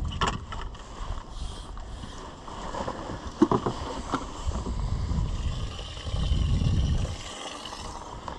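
Wind buffeting the microphone on an open boat, an uneven low rumble that swells and fades, with a few light clicks and knocks.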